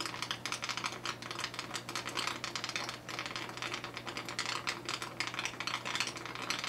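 Air from a small aquarium air pump sputtering out of slits cut in submerged airline tubing in a bucket of water: a rapid, irregular run of pops and clicks over the pump's steady low hum.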